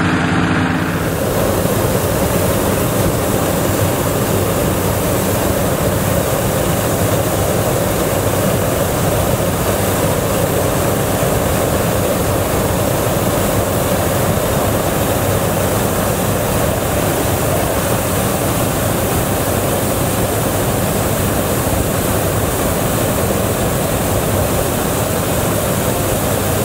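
Hot-air balloon propane burner firing steadily into the envelope during hot inflation, a loud, even rushing noise that starts about a second in and holds without a break. Just before it, a vehicle engine idles briefly.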